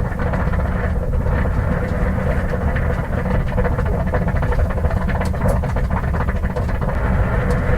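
1950 Ford six-cylinder engine idling steadily while overheating, its radiator water boiling up into the hose.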